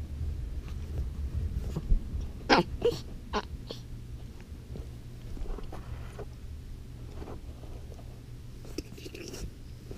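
Pomeranian puppy giving a few short, high yips and grumbles in play, bunched about two and a half to three and a half seconds in, with a couple of fainter ones later, over a steady low hum.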